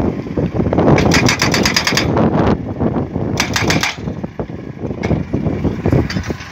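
DDIPL DD950B pile driver's hydraulic hammer striking a crash barrier post in bursts of rapid blows, about ten a second, with its engine running between bursts.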